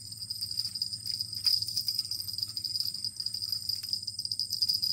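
Insect chorus, a steady high-pitched buzzing drone with a fast pulsing texture.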